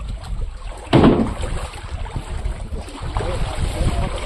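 Outdoor wind rumbling on the microphone, with a single sudden thump about a second in.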